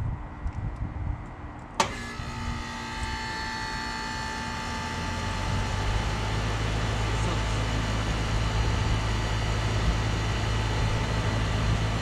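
1993 Carrier TECH 2000 1.5-ton heat pump outdoor unit starting up in heat mode. A sharp click about two seconds in is followed by the hum of its Tecumseh AW reciprocating compressor coming on. About three seconds later the outdoor fan comes up to speed, and the unit settles into a steady running drone.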